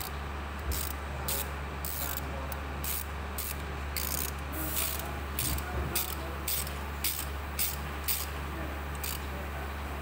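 Ratchet wrench on a socket extension working the timing-belt tensioner bolt: short bursts of ratchet clicking, about one to two a second and irregular, over a steady low hum.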